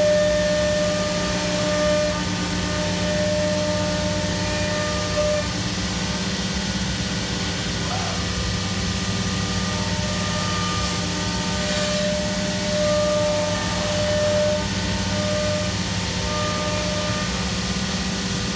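Steady machinery hum with a constant low drone and hiss, with a few higher steady tones that come and go every second or two.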